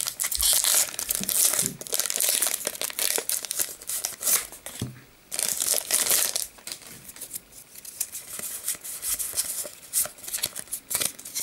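Foil wrapper of a Pokémon trading card booster pack crinkling and being torn open, loud for the first six seconds with a brief pause about five seconds in. After that come quieter rustles and clicks as the cards are handled.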